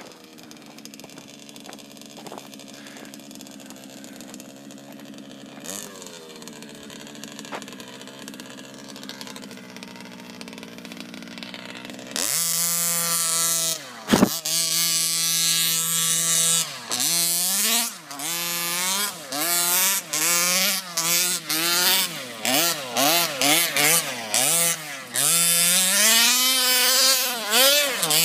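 1/5-scale gas RC buggy's O'Neill Brothers Racing 30.5cc full-mod two-stroke engine idling for about twelve seconds. It then turns loud and revs in repeated quick throttle bursts that rise and fall in pitch as the buggy drives, with one brief sharp crack soon after it gets loud.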